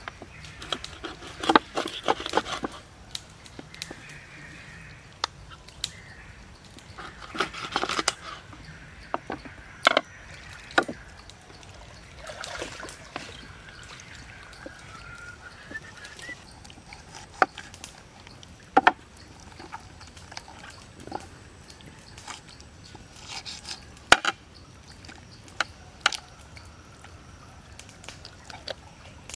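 Knife work and handling of a raw whole chicken on a cutting board: scattered knocks and taps of the blade and carcass against the board, with short stretches of wet, crackly rustling as the meat is cut and pulled apart. A few sharp knocks stand out, the loudest about a second and a half in and again late on.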